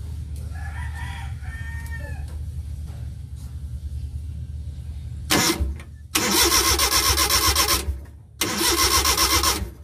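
Suzuki F5A engine of a Multicab cranked on the starter in two long bursts, about two seconds and a second long, without catching, while the ignition coil's negative side is checked for pulses. A rooster crows near the start.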